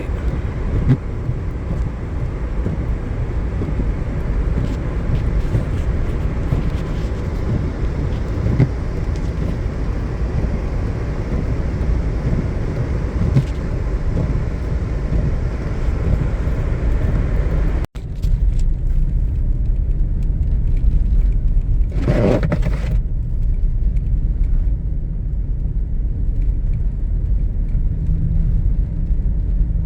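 Steady low road and engine rumble of a Chevrolet Tahoe driving on a snowy road, heard from inside the cabin. The sound cuts out for an instant about eighteen seconds in, and a brief louder noise passes about twenty-two seconds in.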